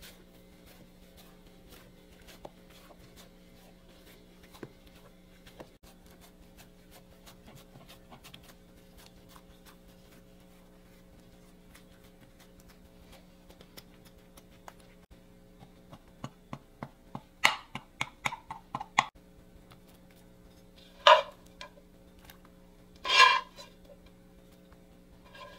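Kitchenware clatter: a quick run of light taps, then two louder, short ringing clinks, over a steady faint hum.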